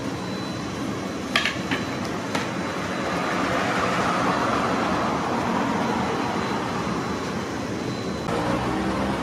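Steady whirring mechanical background noise, like a fan running, with a few sharp clicks about one and a half to two and a half seconds in.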